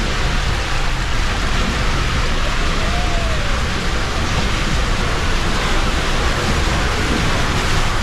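Steady rushing of water and a rider's body sliding at speed down an enclosed water slide tube.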